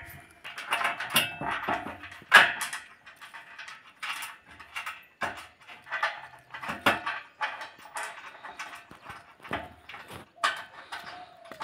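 Irregular sharp metal knocks and clinks as galvanized steel channels of a solar panel mounting frame are handled and fitted together.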